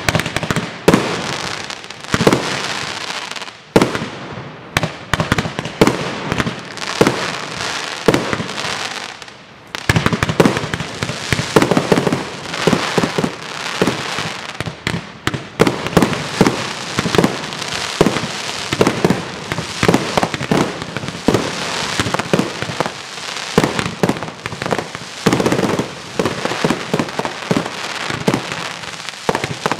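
Fireworks display: aerial shells bursting in quick succession, with crackling between the bangs. There is a short lull about nine seconds in, then a denser barrage builds.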